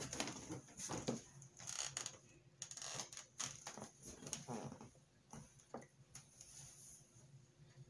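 Faint scattered clicks and light rustling of dry woody twig cuttings being handled on a table.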